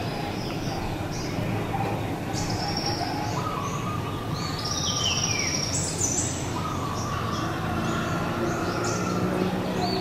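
Birds chirping outdoors, with one call sliding down in steps about four seconds in, over a steady low background hum.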